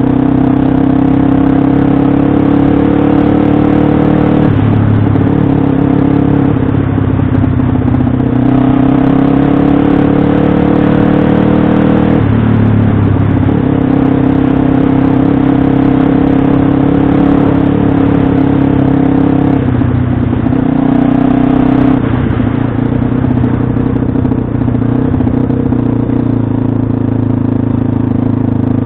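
Pit bike engine running hard under riding load, its note climbing and then dropping abruptly several times as the throttle changes, with some clatter.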